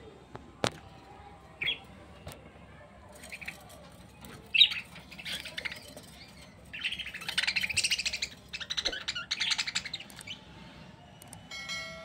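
Budgerigars chirping, a few short chirps at first and then longer raspy chattering bursts through the middle, with a sharp click about half a second in.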